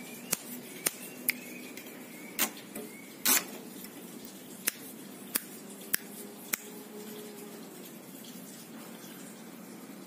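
About nine sharp, irregular clicks, the loudest a third of the way in, from a caged plain prinia (ciblek sawah) moving about its perches in a bamboo cage.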